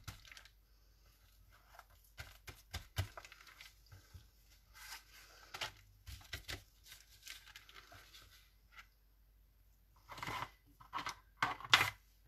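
Watercolour paper being handled: scattered rustles, crinkles and light taps, growing louder and denser about ten to twelve seconds in.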